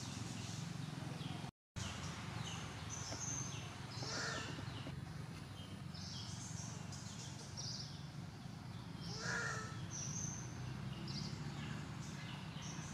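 Forest ambience: frequent short high chirps and two louder calls, about four and nine seconds in, over a steady low hum. The sound cuts out briefly about one and a half seconds in.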